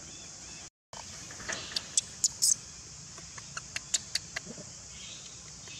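A run of small, sharp clicks and ticks over a steady high hiss, the sound cutting out for a moment just before they begin.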